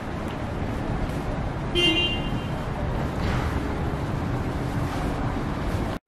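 Steady outdoor traffic noise, with a short car horn toot about two seconds in.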